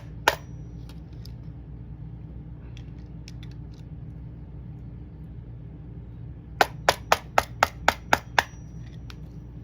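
Hammer striking a laminated padlock to work its next plate loose: one sharp metallic hit, a few light clicks, then a quick run of about eight hits, roughly four a second, each with a faint ring.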